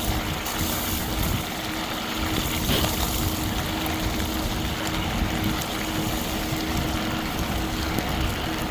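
Electric bike riding over a snowy road: a steady rush of wind and tyre noise, with a faint steady whine from the electric motor.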